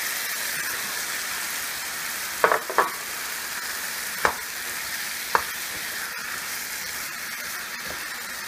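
Onion-tomato-yogurt masala sizzling steadily in a pan as raw chicken pieces go in, with four short knocks of the wooden spatula and pieces against the pan between about two and a half and five and a half seconds in.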